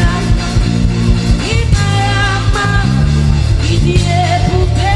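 Live gospel worship music: the band plays a steady groove with held bass notes, and a voice sings held, sliding notes over it twice, between the lead singer's lyric lines.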